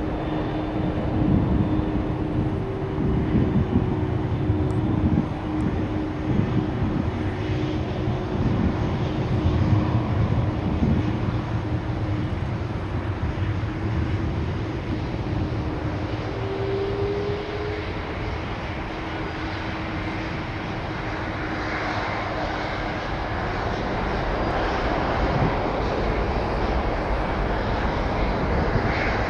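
Jet airliner engines rumbling with a steady hum. The noise eases off past the middle and builds again near the end.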